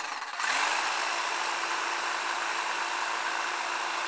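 Electric hedge trimmer running at full speed. It spins up with a rising whine about half a second in, then holds a steady buzz, while its blades make no headway on a weed stalk too thick for them.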